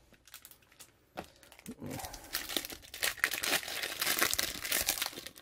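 Plastic-foil wrapper of a baseball card pack being torn open and crinkled by hand, a dense crackle that starts about a second in and grows louder.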